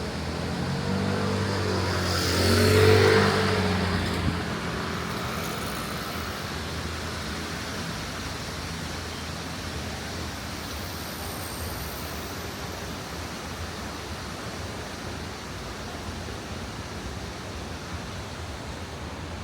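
A motor vehicle passes close by, its engine and tyres swelling to a peak about three seconds in and then fading. It leaves a steady outdoor hiss of distant traffic and wind.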